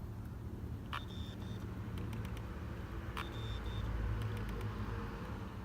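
Samyang 50mm f/1.4 FE lens making its strange noise when set to f16. It goes twice: a click, then a brief high whine and a few light ticks. Its aperture blades stay stuck wide open, so the sound is the lens failing to stop down.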